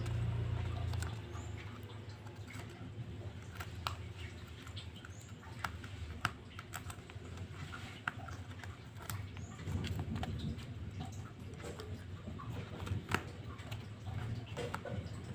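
Fingers picking at and peeling paper backing off a sand-art card and pressing on it: light scratching with small irregular clicks and taps. A low hum fades out in the first second.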